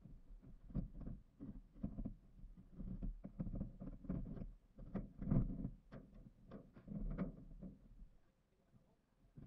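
Irregular thuds and knocks on corrugated steel roofing sheets as workers walk and work on them, several a second, quieter near the end.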